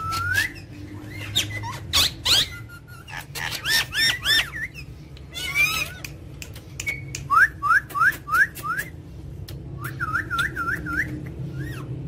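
Rose-ringed (ringneck) parakeets calling: short, sharp whistle-like notes, some in quick runs of five rising notes, with scattered clicks between.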